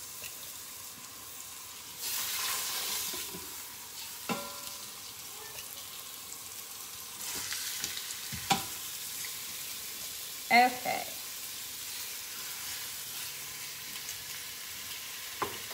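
Seasoned pork chops sizzling as they sear in the hot stainless steel bowl of a Pampered Chef Quick Cooker electric pressure cooker on its sear setting. The sizzle swells louder about two seconds in and again around seven seconds, as chops go into the pot. Metal tongs clink against the pot a few times.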